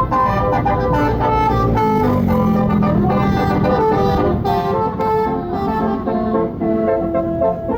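Bus telolet basuri horn, a set of air horns playing a tune of changing notes, over a bus engine's low rumble.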